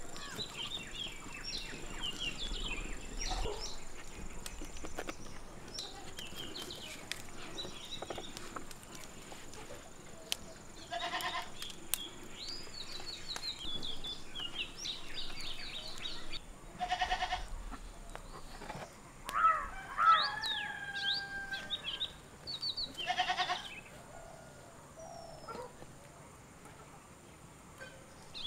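A goat bleating three times, spaced a few seconds apart, over small birds chirping steadily. A louder gliding call sounds about two-thirds of the way through.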